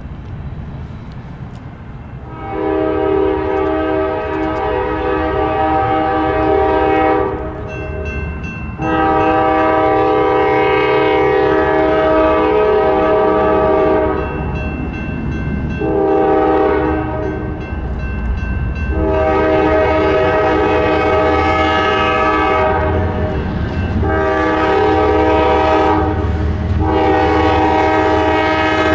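A GE ES44AH diesel freight locomotive's multi-note air horn sounding the grade-crossing signal, over the low rumble of the diesel engines. Two long blasts and a short one are followed by further long blasts.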